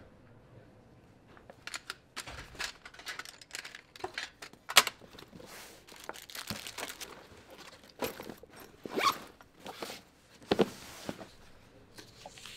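School things being gathered up and packed on a desk: sheets of paper, books and a pencil case rustling and knocking, with zip-like rasps. The noises are irregular, with the sharpest knock about five seconds in.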